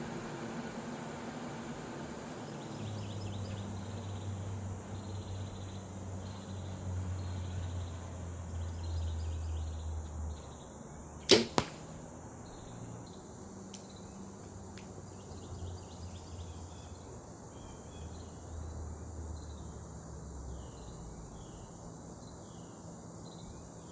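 A single bow shot about halfway through: the snap of the string on release, then the arrow striking the target a fraction of a second later. A faint low hum and faint insect chirping sit underneath.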